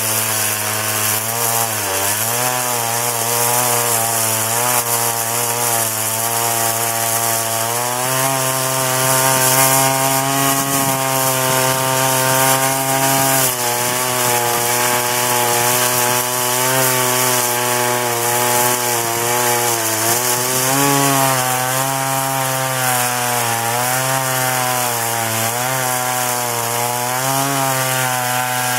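Large two-stroke chainsaw running at high revs and cutting through thick tree trunk. The engine pitch dips and recovers again and again as the chain loads up in the wood.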